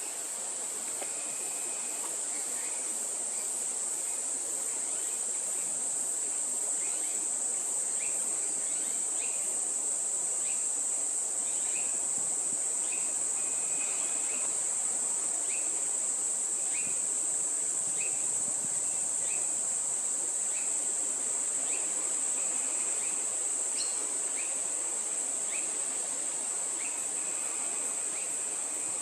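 Steady, high-pitched insect drone, with short chirps at a lower pitch repeating about once a second.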